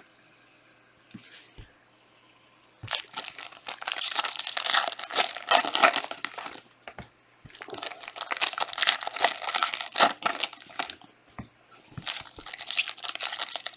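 Foil trading-card pack wrappers crinkling and tearing as packs are ripped open by hand. The rustling comes in three long spells, the first starting about three seconds in.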